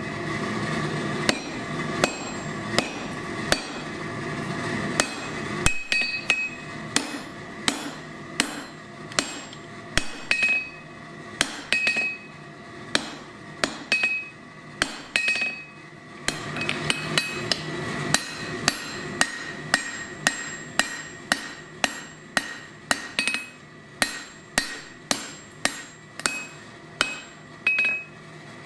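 Blacksmith's hand hammer striking red-hot steel on an anvil, forging the setdown for the reins of a pair of wolf jaw tongs. It is a long run of blows at roughly two a second, some with a short ring after them.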